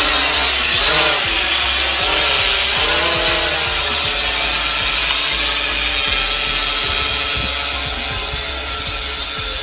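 Holy Stone HS100 quadcopter's propellers buzzing as it climbs after auto takeoff. The pitch wavers up and down over the first few seconds, then the buzz grows gradually fainter as the drone rises away.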